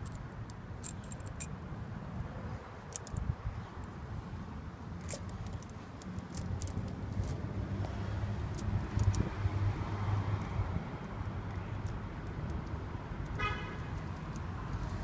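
Steel links of a studded ATV tire chain clinking and jangling in short scattered clicks as the chain is hooked and fastened on the tire. Underneath runs a low vehicle rumble that swells in the middle, and a short toot sounds near the end.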